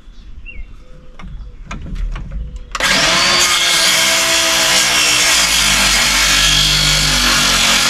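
Cordless circular saw starting up about three seconds in and cutting through a wooden deck rail board, recutting a 45-degree railing joint: a loud, steady blade whine in the wood. A few light taps of handling come before it.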